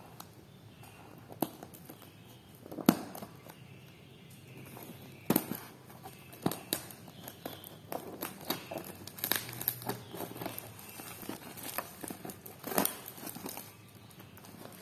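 Scissors cutting through a parcel's clear plastic wrapping over brown paper, the plastic crinkling and crackling as it is cut and handled. The sound comes in irregular sharp snips and rustles, the loudest about 3 and 5 seconds in and again near the end.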